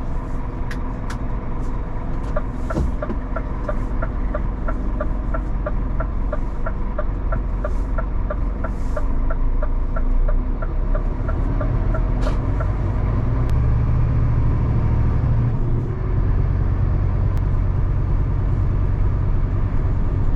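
Lorry cab: the diesel engine of a 26-tonne rigid lorry running, with the turn indicator ticking about three times a second for roughly the first ten seconds. Then the engine pulls harder as the lorry moves off.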